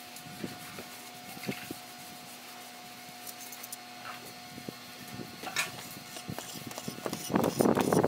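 Small steel trowel scraping and rubbing over wet cement mortar as the edge of an arch is shaped, in short irregular strokes and taps, with a louder stretch of scraping noise near the end.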